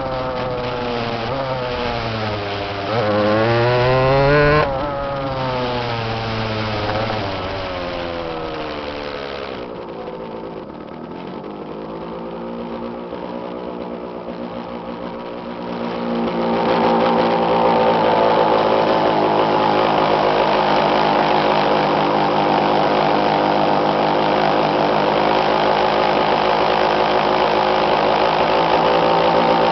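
Go-kart engine running under way: its pitch climbs briefly a few seconds in, then falls away to a low point about ten seconds in as the kart slows. It climbs again and, from about sixteen seconds on, holds steady and louder at speed.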